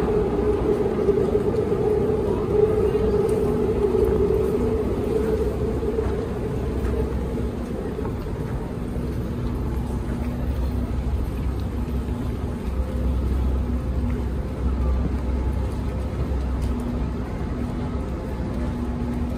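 Railway station platform noise: a steady machine hum that fades out about seven or eight seconds in, over a continuous low rumble, with a high-speed KTX train standing at the platform.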